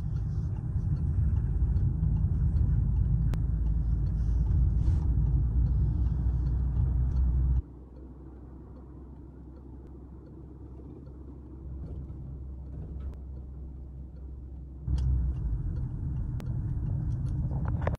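Road noise inside a moving car: a steady low rumble of tyres and engine. It drops abruptly to a quieter level about eight seconds in and comes back about fifteen seconds in.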